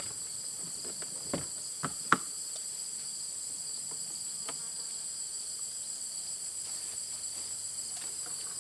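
Steady chorus of crickets: several high, unbroken tones. A few sharp clicks come between one and two seconds in, as the solar pump's control box is handled and switched on. The submersible pump, hanging out in the pond, is not heard.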